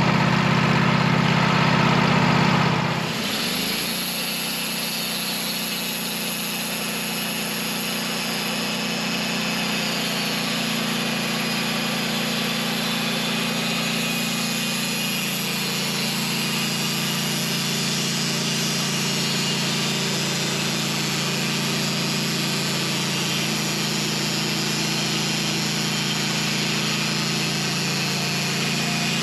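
Sawmill running steadily through a long cut in a pin oak log, its engine note even throughout. About three seconds in the engine sound drops slightly and its pitch shifts, then holds steady with a continuous high hiss.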